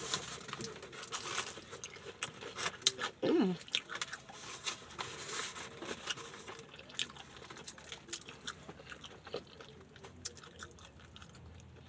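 Close-up eating of crispy fried chicken: irregular crunches of the breading between bites and chewing. A brief hum from the eater comes about three and a half seconds in.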